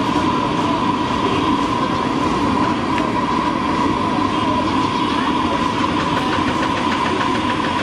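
Steady din of a busy street: traffic noise and distant voices, with a steady high-pitched tone running through it.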